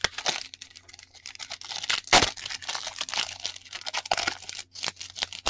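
Crinkling of a clear plastic card sleeve and a foil trading-card pack being handled and torn open, with a sharp rip about two seconds in.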